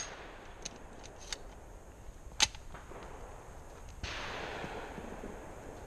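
Sharp clicks and snaps of a shotgun being handled and closed at the shooting stand, the loudest snap about two and a half seconds in. About four seconds in, a muffled distant shotgun shot rolls through the woods and fades.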